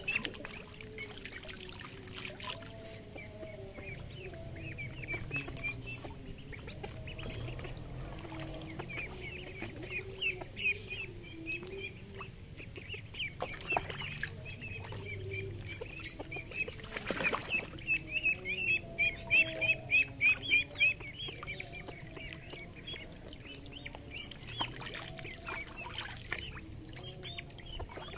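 Young ducks peeping in runs of short, high calls, loudest about two-thirds of the way through, with a little splashing of water in the pool.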